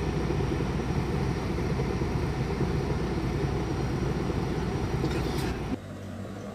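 Steady rumbling road and engine noise of a vehicle driving. It cuts off abruptly near the end to a much quieter background.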